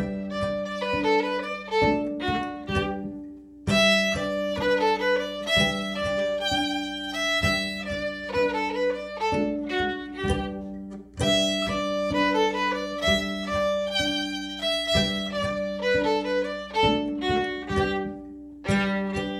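Solo fiddle playing a lively tune in G major, quick bowed melody notes over a steady low note ringing underneath, with short breaks between phrases.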